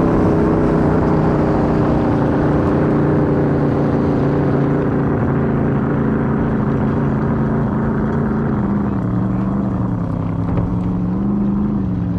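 Supercharged alcohol-burning engine of a jet drag boat idling steadily, with water washing along the hull. Its pitch eases slightly lower in the last few seconds, with a short rise near the end.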